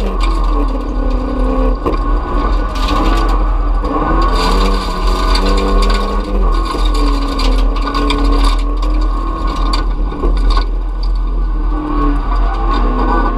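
Folkrace car engine heard from inside the stripped, caged cabin, revving hard with its pitch rising and dropping repeatedly as it is driven through the gears. Over it come a loud rattle from the bare body and frequent sharp clatters and knocks.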